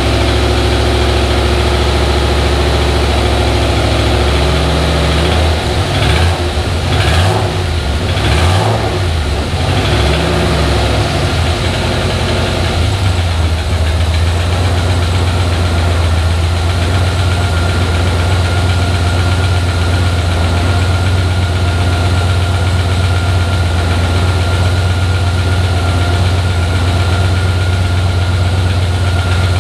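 Turbocharged 5.3-litre LS V8 idling on its first run after a rebuild. A few short revs between about five and ten seconds in raise and drop the pitch before it settles back to a steady idle.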